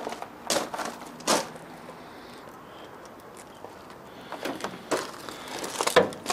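Handling noises around an old car body: scattered knocks and scuffs, then a louder clunk about six seconds in as the steel door of the 1936 Hillman Minx is opened.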